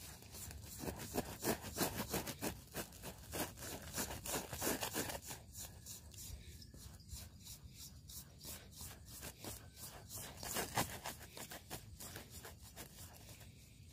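A hand stirring and kneading damp powdered fishing bait in a basin: irregular scraping and rustling strokes, busiest in the first few seconds and again near the end.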